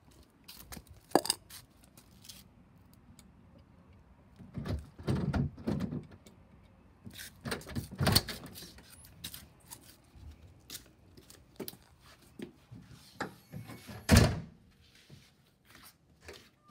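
Scattered knocks and thumps with light clicks between; the loudest thump comes about fourteen seconds in.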